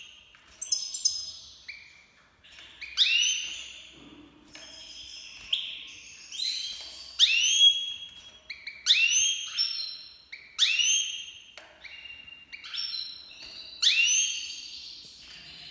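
Caged Iranian goldfinch, a European goldfinch (Carduelis carduelis), singing: sharp, high notes with quick pitch glides, in short phrases about once a second, loudest from about three seconds in.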